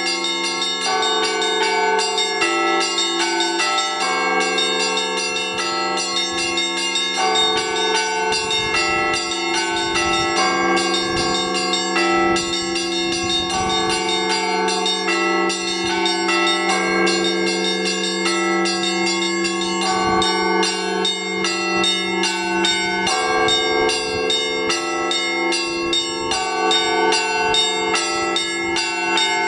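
Russian Orthodox church bells rung in the Rostov tradition, one ringer working the clappers of a set of fixed bells with ropes. The small bells chime in a quick repeating pattern over the steady low hum of a large bell, and the strikes grow quicker and denser about two-thirds of the way in.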